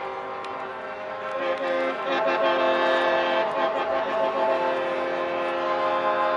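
Air horns of several trucks in a truck parade blowing together, their long, steady chords overlapping. New horns join about a second and a half in.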